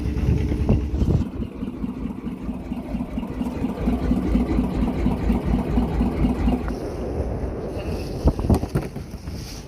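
Fishing boat's motor running steadily, dropping away about two-thirds of the way through, followed by a few sharp knocks near the end.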